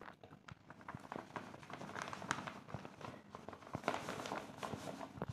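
Dry gulab jamun mix powder poured out of a foil-lined packet onto a steel plate, with the packet rustling and crinkling in a run of small irregular crackles.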